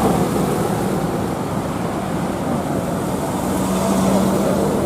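Bus engine running amid roadside traffic noise, a dense low rumble with a steady low hum that grows louder about three and a half seconds in; no telolet horn sounds.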